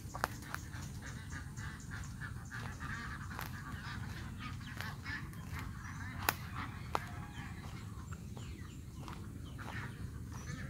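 Domestic fowl calling in a yard, with a few scattered sharp clicks, the loudest about six and seven seconds in.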